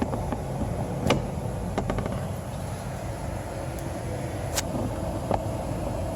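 A few sharp clicks and taps of plastic from glove box parts being handled, over a steady low rumble.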